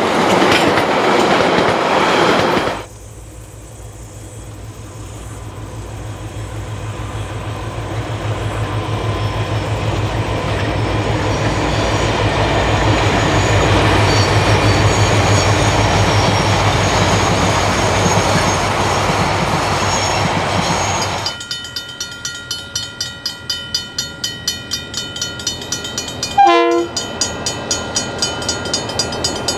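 Diesel-hauled heritage train: carriages rolling past close with their wheels clacking over the rail joints, then a sudden cut to the low, steadily building rumble of the DBR-class diesel-electric locomotives working in the distance. Near the end the locomotive is heard nearer, with a fast regular beat and a brief, loud horn blast about three seconds before the end.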